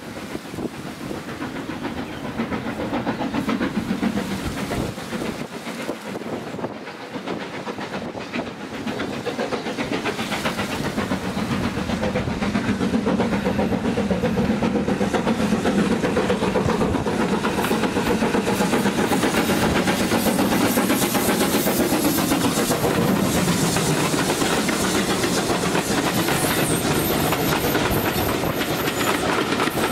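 Steam-hauled train drawing near and running past, growing louder over the first twelve seconds or so, then holding steady, with steam hiss and the clatter of wheels over the rails.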